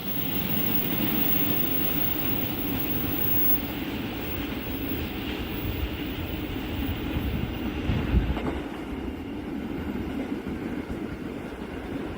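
Train running on the rails, a steady rumble, with a brief low thump about eight seconds in.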